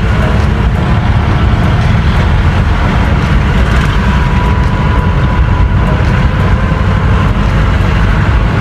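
Steady low engine and road rumble heard from inside the cabin of a moving passenger vehicle.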